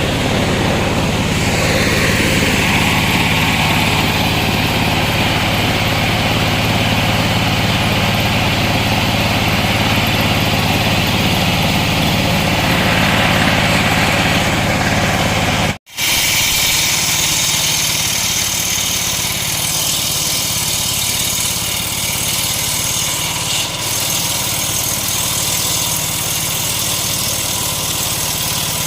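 Homemade engine-driven circular saw rig running steadily. The sound breaks off for an instant about two-thirds of the way through, then carries on with a different tone.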